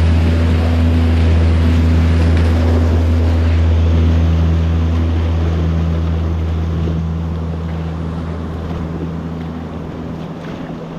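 Motorboat engine running with a steady hum, fading gradually over the second half, with wind and waves on the water.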